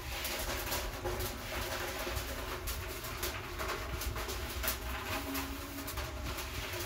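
A cloth or scourer rubbing in strokes across a hard kitchen surface, with a bird calling in the background and a brief held call near the end.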